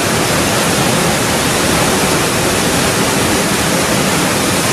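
Large waterfall's falling water: a loud, steady rush of noise with no break.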